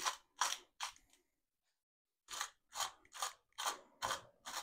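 Hand-twisted spice grinder cranked in short turns, each twist a crunchy ratcheting click, about two to three a second. The clicks come in two runs, with a break of about a second and a half near the start.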